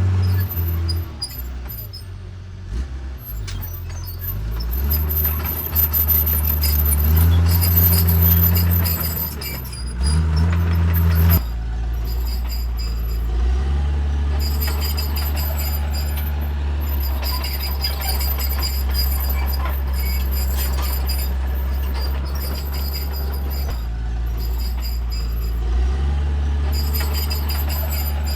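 Heavy diesel earthmoving machinery running, with light metallic clatter. The engine note rises and falls for the first ten seconds or so as it works under changing load, then settles into a steady run.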